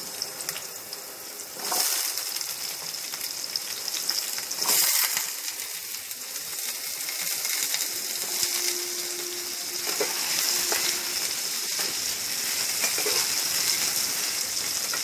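Diced potatoes sizzling as they fry in a little hot oil in a non-stick pan, with louder surges about two and five seconds in as more pieces go in. A spatula stirs them near the end.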